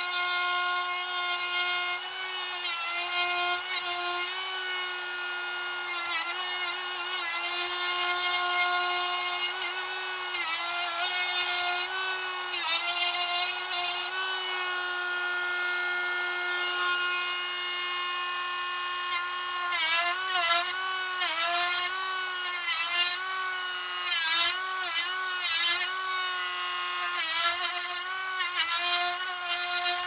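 Milwaukee M12 cordless rotary tool with a cut-off disc running at high speed, cutting into the plastic end of a BMW AUC air-quality sensor. It gives a steady high whine that dips in pitch again and again as the disc bites, most often in the last third.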